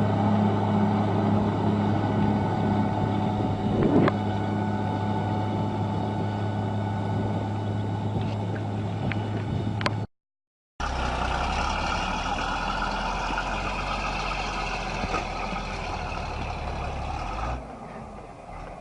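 Heavy diesel machinery engine running with a steady low hum. It cuts off abruptly about ten seconds in, then after a brief gap a different heavy engine rumbles, its sound dropping away sharply near the end.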